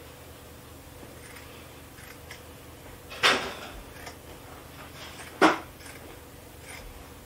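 Scissors cutting through a folded wool blanket: faint snips and ticks, with two loud, sharp clacks about two seconds apart.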